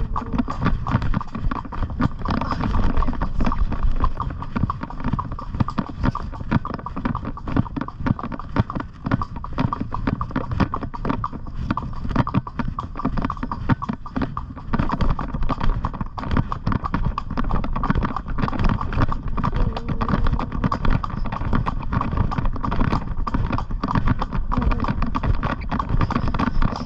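A pony's hooves clip-clopping in a continuous run of hoofbeats as she is ridden.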